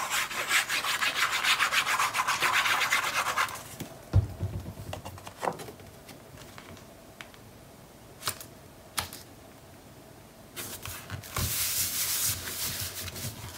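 Rapid scrubbing of a liquid glue bottle's applicator tip across patterned paper, then a single knock as the bottle is set down. A few light paper ticks follow, and near the end palms rub the glued paper flat onto the card.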